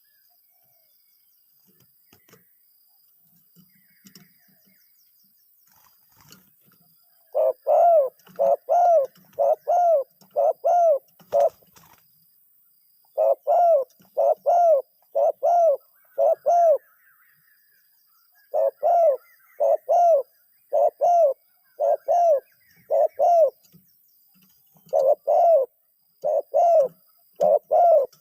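Zebra dove cooing in fast bouts of clear, evenly spaced notes, about two a second. Four bouts start about seven seconds in, with short pauses between them: a caller dove calling to lure wild doves.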